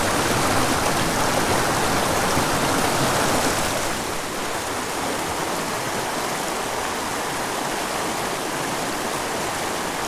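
Small mountain creek running over rocks: a steady rush of water, a little louder for the first four seconds and then slightly quieter.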